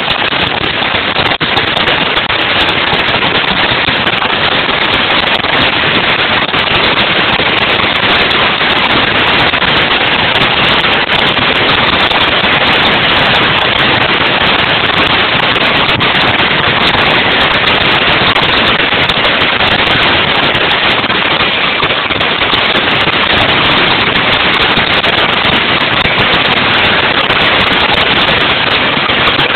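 Stadium crowd cheering and yelling loudly without a break as a deciding seventh baseball game is won.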